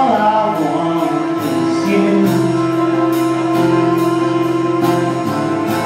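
Band music: a rock song with a steady drum beat and a long note held for several seconds, with a singing voice at the start and near the end.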